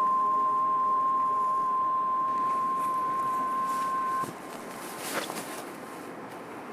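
A long held ringing musical tone cuts off abruptly about four seconds in. It leaves faint outdoor background noise with one brief rustle or knock.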